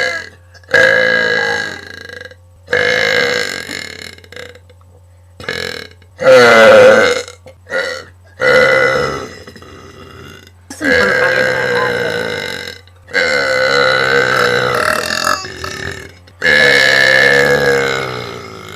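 A string of about nine loud burps from one person, one after another with short gaps, several of them long and drawn out; the loudest comes about six seconds in.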